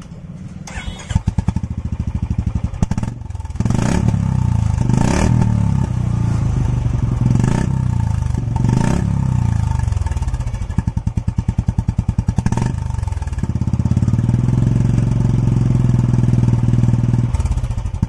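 Royal Enfield Classic 350's single-cylinder engine running through an aftermarket Swagman Indori silencer. It idles with a distinct thump between revs, is blipped four times in the first half, then is held at higher revs for a few seconds near the end before dropping back to idle. The exhaust note is a medium-loud one.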